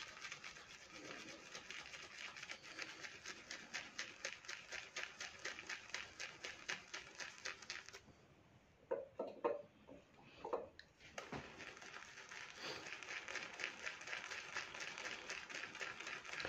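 Boar-bristle shaving brush whipping Vreto shaving soap into lather in a small bowl: brisk, regular strokes, about five a second. The strokes stop for about three seconds midway, with a few faint short sounds, then start again. The lather has just been given more water and is being worked up.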